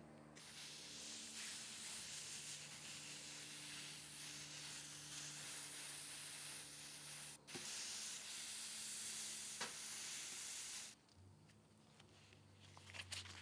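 Steady hiss of steam as a hot soldering-iron tip is pressed through a wet cloth onto a dent in a wood tabletop, boiling the water into the wood to swell the crushed fibres back up. The hiss starts about half a second in, drops out for a moment midway, and stops near the end.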